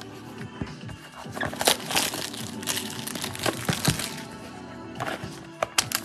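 Packaging of a Topps Inception trading card box being unwrapped and opened, crinkling and crackling in a dense run from about a second in, with a few more crackles near the end. Background music plays underneath.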